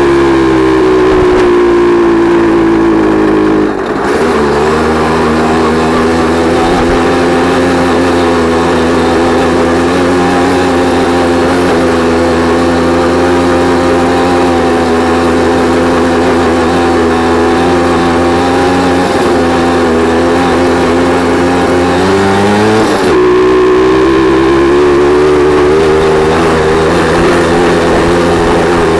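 Jawa 50 type 21 Pionýr moped's 50 cc single-cylinder two-stroke engine running under way, geared with a 14-tooth sprocket. The revs fall at the start and dip briefly about four seconds in. They then hold steady until the pitch jumps up quickly about twenty-three seconds in and stays higher.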